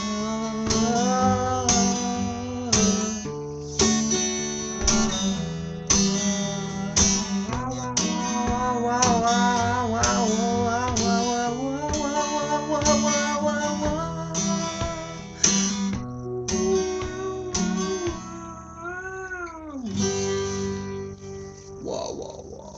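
Acoustic guitar strummed in a steady rhythm, with a man singing a wordless, wavering melody over it. About nineteen seconds in, a long vocal wail rises and falls, and the playing then thins out toward the end.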